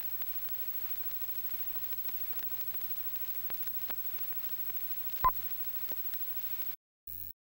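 Steady hiss and faint crackle of an old film optical soundtrack, with scattered small clicks, and one sharp, short, loud beep-pop about five seconds in, like the sync pop on film leader. The hiss cuts off abruptly near the end, followed by a brief blip.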